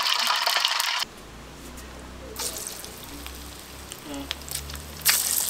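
Hot oil in an aluminium kadai sizzling loudly, cut off suddenly about a second in. A quieter stretch follows, with faint voices and a low hum. Loud sizzling and crackling return near the end as frying resumes.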